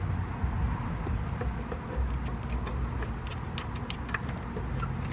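Socket wrench working a 13mm nut on an A/C line fitting: scattered light metallic clicks, with one sharp loud click near the end.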